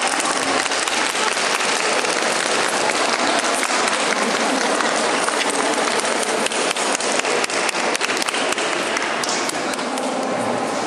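Spectators applauding steadily, dense clapping that thins slightly near the end.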